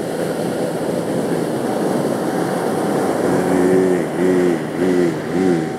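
Steady roar of ocean surf breaking on the beach under the drone of a plucked tambura. About three seconds in, a man's voice comes back in, singing quick, oscillating Carnatic phrases in raga Bhairavi.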